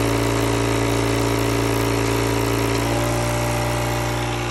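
A DeVilbiss tracheostomy suction machine's vacuum pump running with a steady hum, just switched on and set to 100 on its gauge. Its tone shifts slightly about three seconds in.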